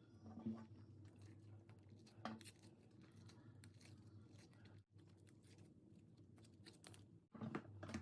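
Pink slime being squished and stretched by hand: faint sticky clicks and crackles, with a few louder pops about half a second in, just after two seconds and near the end.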